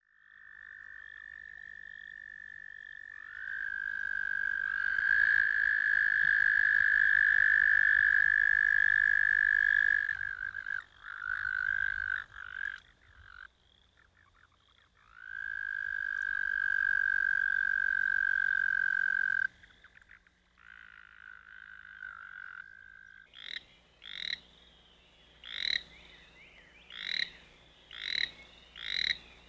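American toads giving long, steady, high trills that last several seconds each, with two trills overlapping at slightly different pitches. Near the end the trills give way to a run of short, sharp calls, about one a second.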